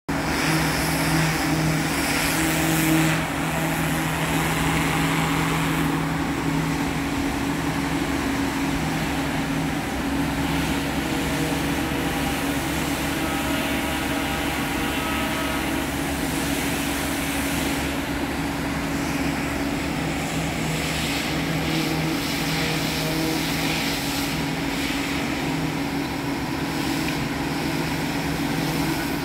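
Steady engine hum holding one constant low pitch, with no change in speed.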